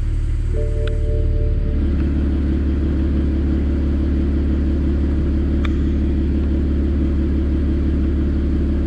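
A car engine idling steadily, a low rumble that settles into an even, fuller note about two seconds in.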